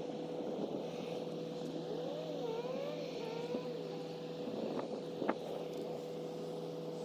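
2020 GMC AT4 pickup's 3.0-litre Duramax inline-six diesel running steadily: an even drone with a constant humming tone. A few brief wavering squeaks come about two to three seconds in, and a single sharp click about five seconds in.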